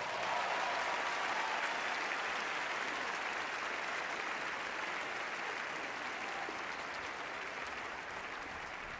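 Theatre audience applauding: steady clapping that slowly fades.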